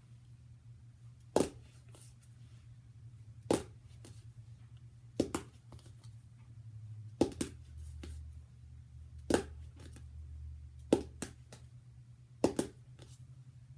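Plastic marker flipped by hand and clattering down onto a flat book, attempt after attempt: seven sharp clacks about two seconds apart, several with a quick second bounce.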